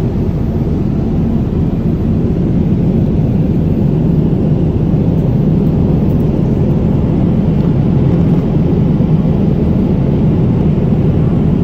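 Jet airliner cabin noise in flight, heard inside the cabin: a steady, loud, low rush of engines and airflow.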